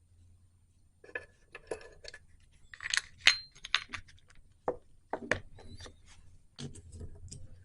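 Small metal parts and tools clinking and clicking as they are handled, in an irregular run of light knocks starting about a second in. The sharpest clink comes near the middle and rings briefly.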